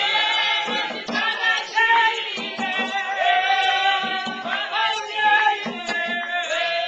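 Group of voices singing together with a steady beat of low drum or stamp-like thumps, stopping abruptly just after the end.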